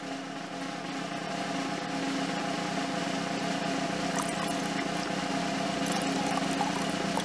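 Water trickling steadily down a string from a jug into a glass tumbler, with a few small drips and ticks, over a steady low hum.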